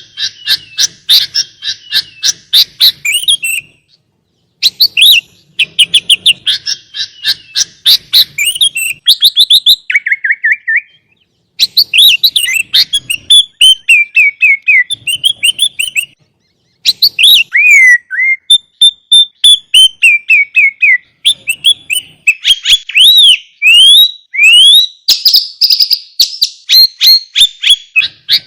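Sooty-headed bulbul (kutilang) singing in quick, varied phrases of chirps, whistles and runs of falling notes, with a few brief pauses.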